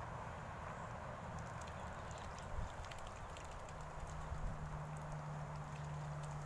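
Ducks bathing in a small tub of water, making faint scattered splashes and dabbling clicks. A low steady hum comes in about halfway through.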